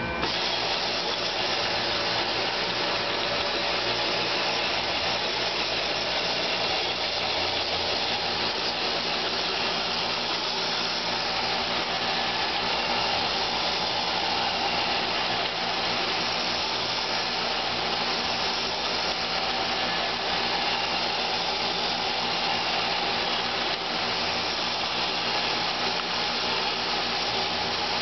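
Roomba robot vacuum running steadily, its suction fan and brush motors whirring with no change in level, as it goes round in circles.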